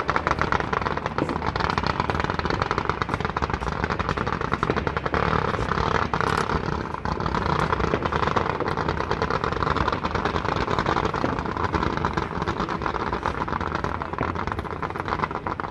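Fireworks going off in a dense, rapid barrage: an unbroken crackling rattle of many small bursts, easing slightly near the end.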